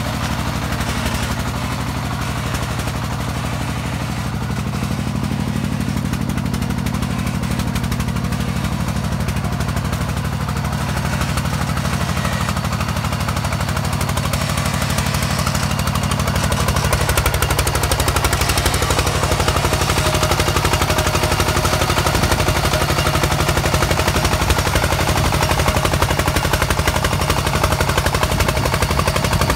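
Single-cylinder diesel engine of a two-wheel-tractor công nông farm truck chugging steadily under load as it hauls a full trailer of sacks uphill, a rapid even run of exhaust beats. It gets a little louder a bit past halfway.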